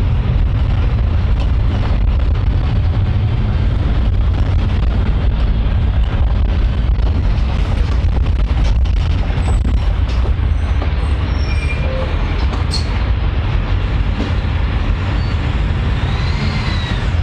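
Public transport vehicle running with a steady low rumble, with scattered clicks and knocks and a brief high tone that rises and falls near the end.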